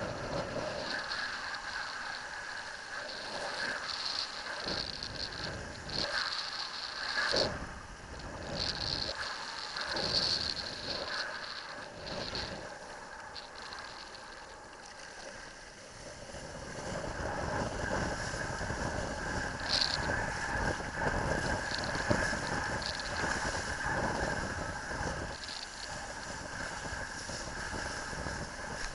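Wind rushing over a helmet camera and water splashing, with a few short knocks, as a kitesurfer moves through shallow surf. The noise grows louder about halfway through, once he is riding through the waves.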